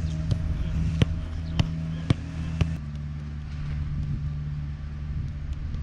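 A football struck four times in quick succession, sharp thuds about half a second apart, over a steady low engine-like hum.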